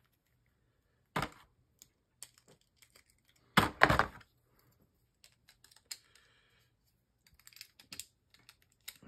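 Plastic Beyblade Burst tops being reassembled by hand: small parts clicking and snapping together in irregular clicks and clacks, with a louder cluster of clacks a little over halfway through.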